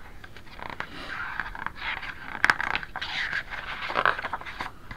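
Pages of a very big picture book being turned: paper rustling and scraping, with one sharp crisp snap about halfway through.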